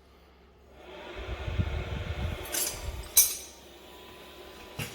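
All-in-one diesel heater's combustion air fan starting up about a second in and blowing air through the hot burner with a faint steady whine, purging the combustion chamber after a reset. Low rumbling runs under it for the first couple of seconds. Two sharp clicks come in the middle.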